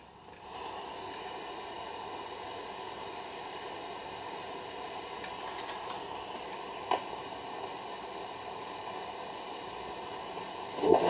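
Old radio's speaker giving a steady hiss of static, with a single sharp click about seven seconds in. Louder music from a station comes in right at the end.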